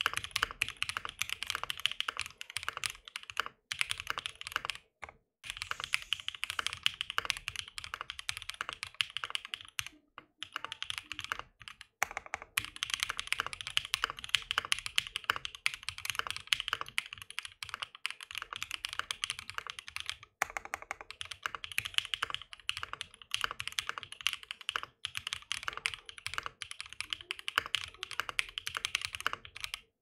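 Fast typing on a Mode SixtyFive custom mechanical keyboard fitted with lubed, filmed Husky Pie switches, a POM half plate and PBT keycaps: a dense, steady run of keystrokes broken by a few short pauses.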